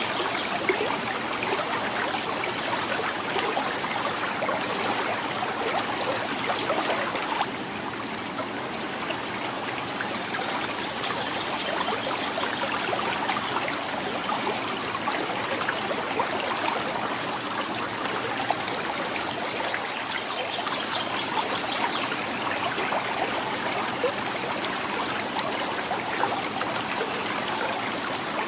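A quiet river flowing and gurgling steadily over stones. It turns slightly quieter and duller about seven seconds in.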